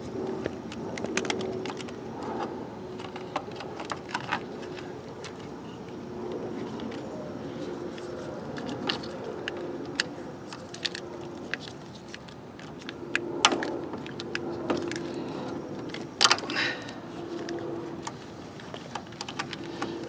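Vinyl electrical tape being peeled off the roll and wrapped around a wiring harness, with scattered sharp crackles and clicks as the tape pulls free and the wires are handled.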